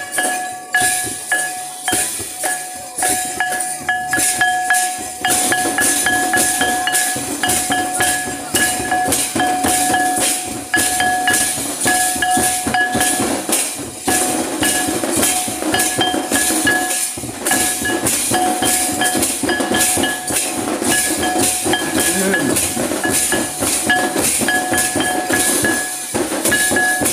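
Live Santal folk dance music: drums beating quick, even strokes, with a high wind instrument holding long notes over them and a steady high jingle on top.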